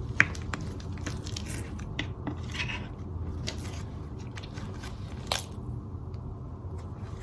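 Soft slime being squeezed and stretched by hand, giving off scattered small clicks and crackling pops, with a sharper pop just after the start and another about five seconds in. A steady low hum runs underneath.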